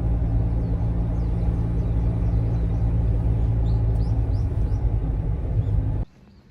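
A steady low rumble like a vehicle running, with birds chirping faintly above it; it cuts off suddenly about six seconds in.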